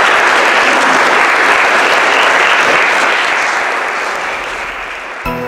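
Audience applauding, slowly tapering off. Near the end the applause cuts off abruptly and music begins.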